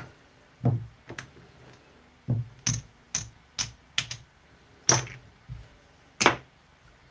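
Casino chips clicking and clacking against each other and the felt as bets are stacked and placed on the craps layout: about a dozen sharp, irregularly spaced clicks.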